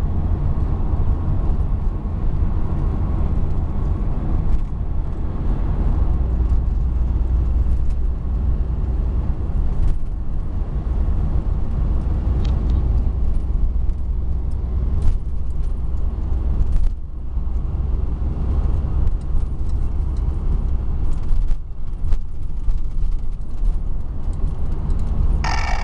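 Road noise inside a moving car's cabin: a steady low rumble of engine and tyres, with a few faint clicks and rattles. A brief hissy burst sounds just before the end.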